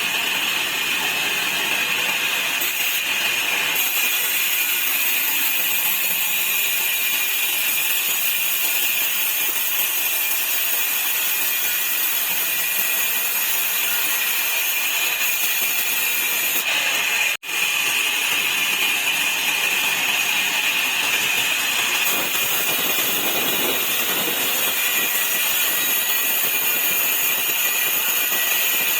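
Sawmill saw running and cutting wood into slats: a steady, loud high-pitched whine over a hiss. It breaks off for an instant about seventeen seconds in.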